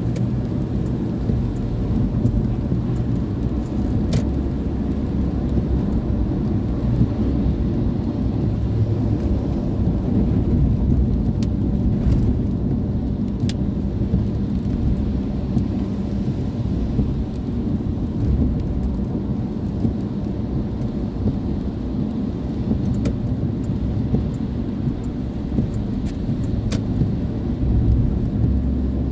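Steady low rumble of a car's engine and its tyres on a wet road, heard from inside the cabin, with a few faint ticks.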